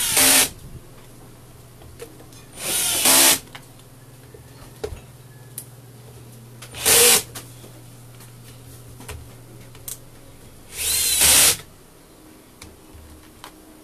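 Cordless drill-driver run in four short bursts, each well under a second, driving screws into the demolition hammer's plastic housing cover. A steady low hum runs underneath between the bursts.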